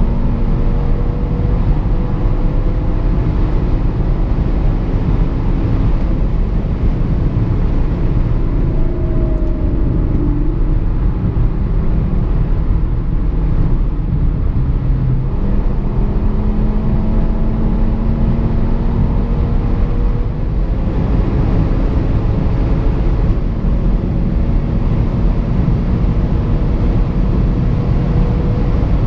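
Audi RS3 R's 2.5-litre turbocharged five-cylinder engine running at a steady cruise under heavy road and wind noise, heard from inside the cabin; the engine pitch drifts only gently.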